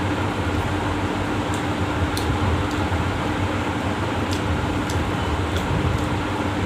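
Steady whir of an electric fan with a constant low hum. Over it come a few faint, sharp clicks of eating and of fingers mixing soaked rice in a metal plate.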